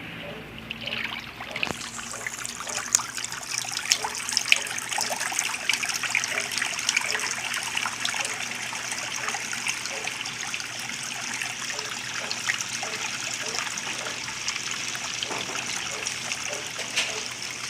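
Water running and splashing steadily inside a Whirlpool 15 kg top-load washing machine, starting about two seconds in, with scattered small ticks and splashes.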